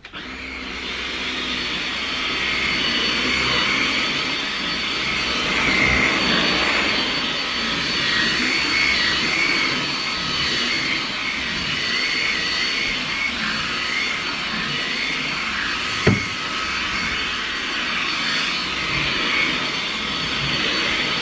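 Wertheim Evolution cordless handstick vacuum running, a steady rushing motor noise with a constant high whine, its pitch wavering slightly as it works. A single sharp knock about sixteen seconds in.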